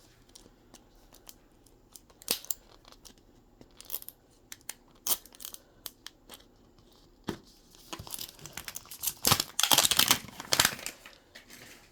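Plastic packaging of a Mini Brands toy capsule being handled and unwrapped: scattered small clicks and rustles, then a louder burst of crinkling and tearing about nine seconds in.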